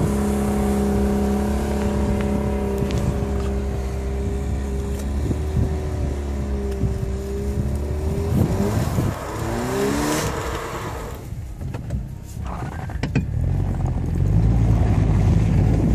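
2010 Jeep Patriot's four-cylinder engine revving hard and holding high revs while its wheels spin in hard-packed snow. About halfway through the revs waver and fall, then the engine runs at lower revs and louder near the end.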